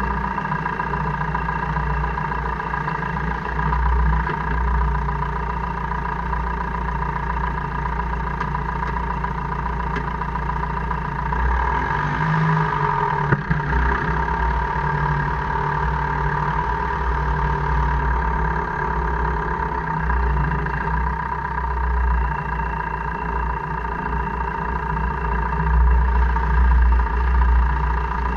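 A 2002 Jeep Cherokee KJ running in four-wheel drive: a steady drone with a constant whine over it, swelling a few times, and one sharp click about thirteen seconds in. This is the grinding and clicking that the owner gets only in 4H or 4L and cannot yet explain.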